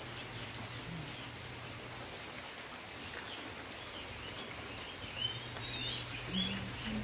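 Light rain falling steadily, with small birds giving short chirps now and then.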